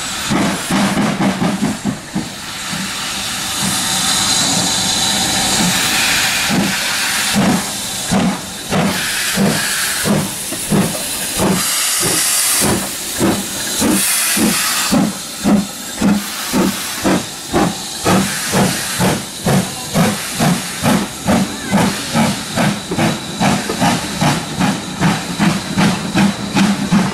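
Steam locomotive passing close by, hissing steam, followed by its coaches rolling past with a regular clatter of wheels over rail joints that quickens as the train gathers speed.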